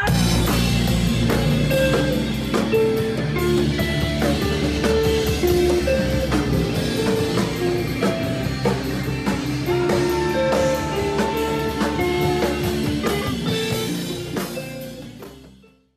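Rock band playing: drum kit with electric guitars and bass guitar, fading out near the end.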